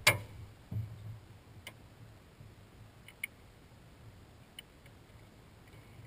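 A sharp knock right at the start, then a few light, scattered clicks and taps: small handling noises on a boat deck, over a faint low rumble.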